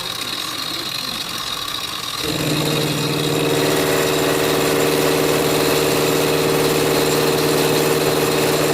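Machine-shop motor running with a steady whirr. About two seconds in a louder, steady pitched hum comes on and holds, as a motor starts up or comes up to speed.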